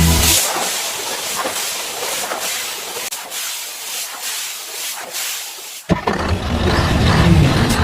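A steady hiss that slowly fades over about six seconds, then a sharp click, followed by a rougher, fuller rushing noise.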